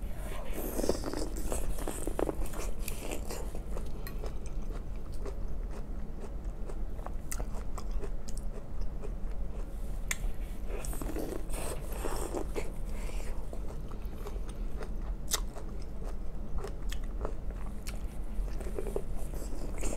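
Close-up eating sounds: biting into a sauce-coated ear of boiled corn on the cob, with crunching, chewing and small wet mouth clicks. Denser bites come near the start, about halfway through, and near the end.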